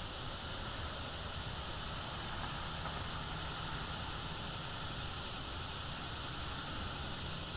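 Steady outdoor background noise: an even hiss with a low rumble underneath, unchanging, with no calls or other distinct sounds.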